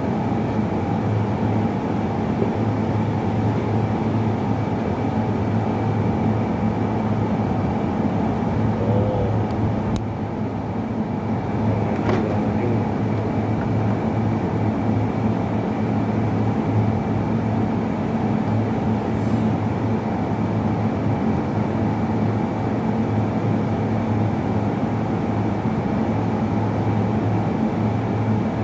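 A steady mechanical drone, like a running engine or motor, with a constant low hum and a thin high whine. There is a single click about ten seconds in.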